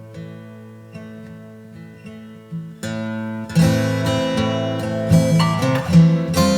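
Acoustic guitar music: sparse plucked notes ringing out, then fuller strummed chords from about three and a half seconds in.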